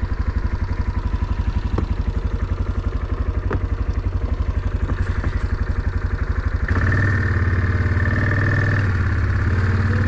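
A small vehicle engine idles with an even, rapid chug. About two-thirds of the way in it picks up, running louder and smoother with a steady whine on top.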